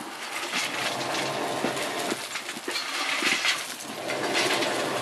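Hand-pumped bellows blowing a clay bloomery furnace in repeated whooshing puffs, about one every second and a half. Light crackle and clatter as the furnace is charged from a scoop.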